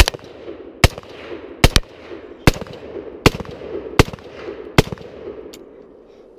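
AR-15 rifle fired semi-automatically, eight shots at a steady pace of about one a second, with two fired close together a little under two seconds in.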